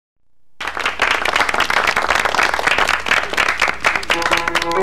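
Audience applauding, starting about half a second in after a moment of silence. A musical intro with pitched notes comes in under the applause near the end.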